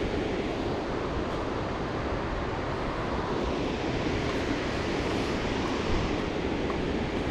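Steady rush of falling water from a waterfall, an even roar that holds the same level throughout.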